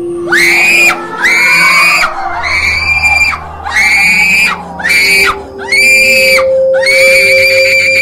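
A run of about seven shrill, high-pitched screams, each rising sharply then held, the last one the longest, over a faint droning music bed.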